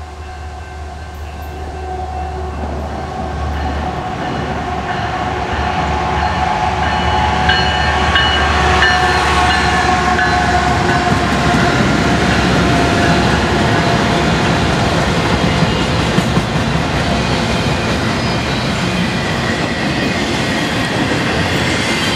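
Freight train passing close by: a low diesel-locomotive rumble at first, then the noise of the train rolling along the rails. It grows louder over the first ten seconds or so and then stays steady.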